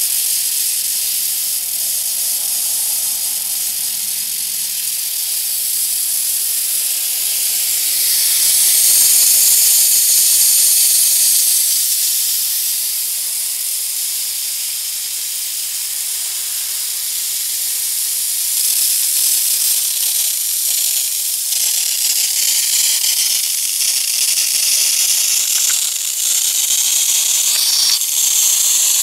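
Lawn sprinkler heads hissing as compressed air blows the remaining water out of the underground lines as a misty spray. The steady hiss swells for a few seconds partway through.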